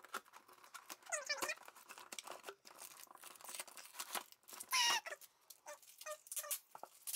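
Toy packaging being handled and pulled apart, in irregular short crinkling and tearing crackles. A brief high-pitched squeal stands out about five seconds in, with a fainter one about a second in.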